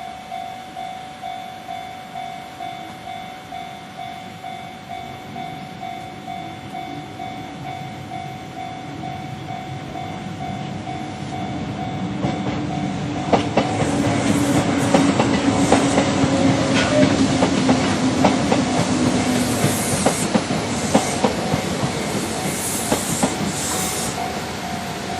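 Japanese level-crossing bell ringing steadily at about two strikes a second as a Kintetsu electric train comes in and passes. The train builds from about ten seconds in and is loudest in the second half, its wheels clicking sharply over the rail joints. Near the end the bell comes through clearly again.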